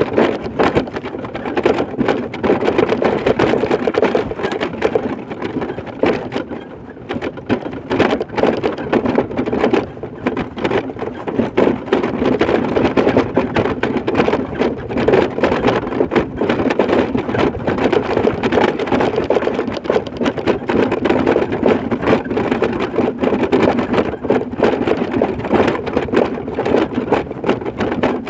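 A vehicle travelling along a road: a continuous rumble of engine and road noise that flutters rapidly in loudness, with a brief dip about six seconds in.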